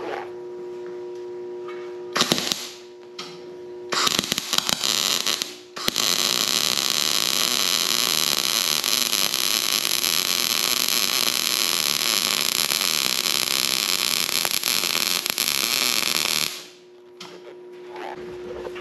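Wire-feed (MIG-style) welder arc on steel: two short crackling tack bursts in the first few seconds, then one continuous crackling weld for about ten seconds that stops abruptly. A steady hum sits underneath before and after the welding.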